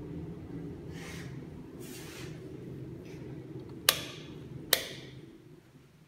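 Steady low hum of a ducted air conditioner blowing through a ceiling diffuser, which fades away near the end. Two soft hissing swishes come early on, and two sharp clicks come a little under a second apart shortly before the hum fades.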